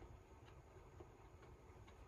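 A few faint computer mouse clicks, roughly half a second apart, over quiet room tone with a low hum.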